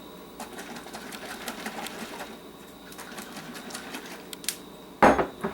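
A scattered run of light clicks and taps, then one louder knock near the end.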